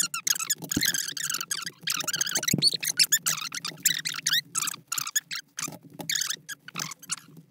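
Bubble wrap and cardboard packaging rustling and crinkling as they are handled and peeled open, a dense run of irregular crackles.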